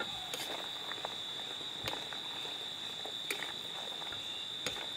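Metal spoon scraping and clicking against an iron kadhai as syrup-coated shakkar para pieces are turned, a few sharp clicks about every second and a half, under a steady high-pitched drone.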